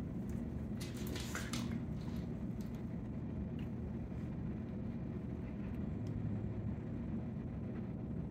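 Quiet indoor room tone: a steady low hum, with a few faint clicks about a second and a half in.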